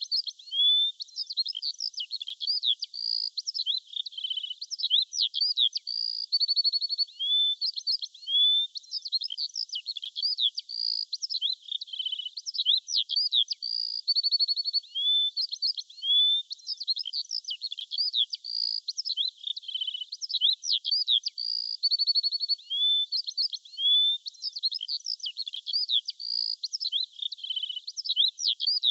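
Birdsong: high chirps, rising whistles and short trills that repeat over and over in a similar pattern, with no other sound beneath.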